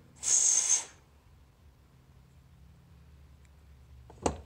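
A short burst of hiss lasting under a second, then a single sharp click near the end.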